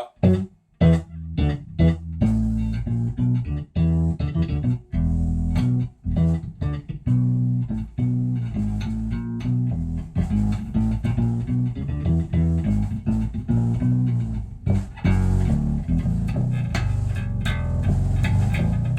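Electric bass played through an MXR Sub Octave Bass Fuzz with its fuzz turned down, so only a sub-octave is added under each note for a thick synth-bass tone. Short, choppy notes with gaps come first, then from about five seconds in a near-continuous line of notes.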